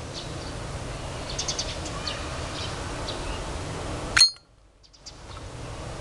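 Solid-brass Zippo lighter's lid flipped open about four seconds in: a single sharp metallic clink with a brief ring. Before it, a steady background noise with faint high chirps.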